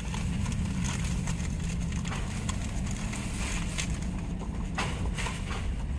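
Steady low hum inside a minivan cabin, with a few soft clicks and rustles as things are handled.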